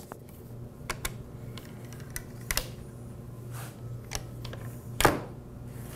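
Scattered light clicks and taps of tools and metal hardware being handled on a wooden workpiece, with a sharper knock about five seconds in, over a steady low hum.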